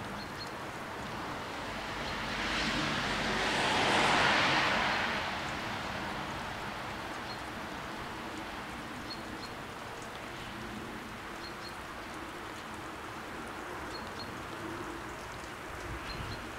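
Steady hiss of light rain. A louder rush of noise swells and fades a few seconds in.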